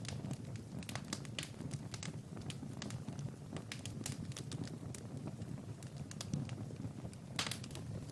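Wood fire crackling: irregular sharp pops and snaps over a low steady rumble of flames, with a cluster of louder pops a little past seven seconds in.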